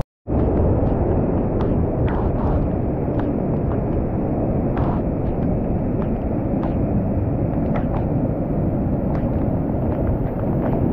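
Wind buffeting the microphone: a steady, loud rumbling noise with faint light ticks scattered through it, after a split second of silence at the very start.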